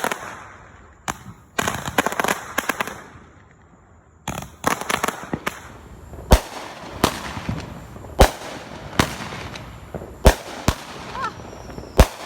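Consumer fireworks going off: rapid crackling bursts for the first few seconds, a short lull, then a run of single sharp bangs about one a second with crackling between them.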